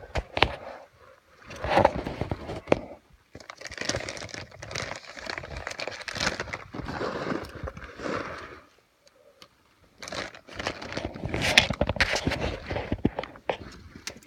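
Clothing and body scraping and rustling against granite as a climber wedges himself through a narrow rock crevice: irregular scuffs, rubs and small knocks in bursts, with a short lull about two-thirds of the way through.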